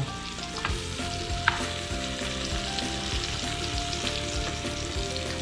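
Beef steak sizzling steadily as it pan-fries in butter in a nonstick frying pan, with one short sharp click about a second and a half in.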